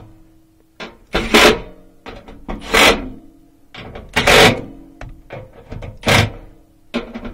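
Milwaukee M12 FUEL cordless driver running in about five short bursts, roughly one every second and a half, driving home the bolts on the blower motor's mounting arms.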